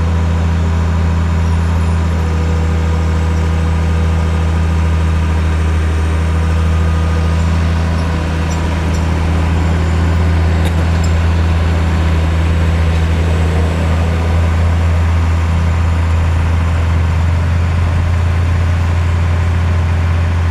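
Large engine running at a steady, unchanging speed, a low even hum.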